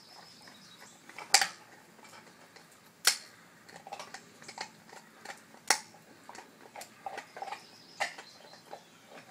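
A dog gnawing and crunching on a bone: four sharp cracks a couple of seconds apart, with softer chewing clicks in between.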